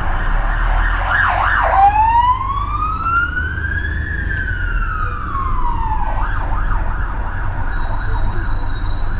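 An emergency van's siren going past. It gives a fast warbling yelp, switches about two seconds in to one slow wail that rises and then falls, and goes back to the fast yelp about six seconds in. A bus engine rumbles low and steady underneath.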